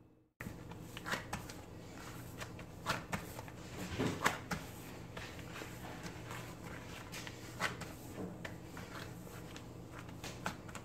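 A rubber-gloved hand kneading homemade playdough on a countertop: soft, irregular squishing, pressing and glove-rubbing sounds with a few louder pats, over a faint steady hum.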